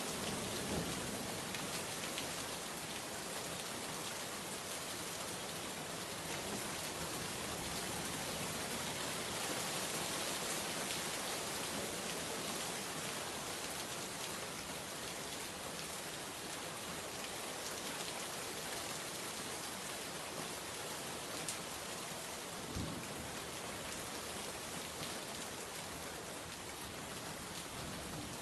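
Steady rain falling on a surface, a dense even patter with individual drops ticking now and then, and a few soft low thumps.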